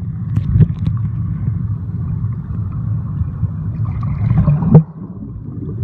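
Rushing water with a low, steady rumble on the microphone and a few knocks, dropping off suddenly near the end.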